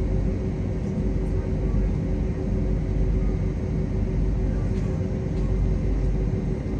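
Steady cabin hum of a parked airliner: air-conditioning noise over a deep rumble, with a constant low whine.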